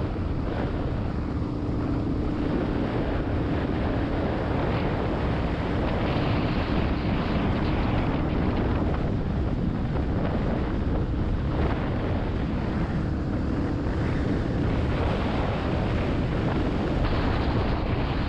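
Heavy wind noise buffeting the microphone over a steady low engine hum, as from a moving vehicle.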